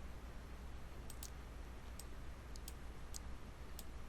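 A computer mouse clicking, with about eight short, irregular clicks over a faint low room hum.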